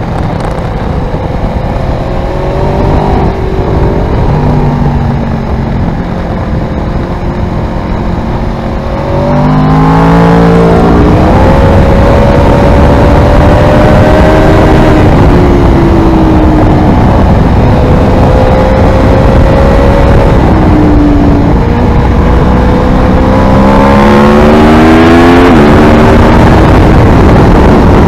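Aprilia Tuono V4R's V4 engine through an Ozdany aftermarket exhaust, heard onboard while riding: lighter throttle with the pitch stepping between gears at first, then, about ten seconds in, it gets much louder under hard acceleration with the pitch climbing and dropping at each upshift. It climbs and shifts again near the end, over a steady rush of wind and road noise.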